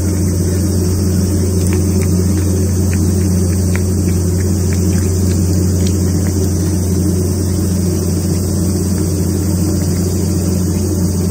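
Steady, unchanging low engine drone, like a motor running at idle.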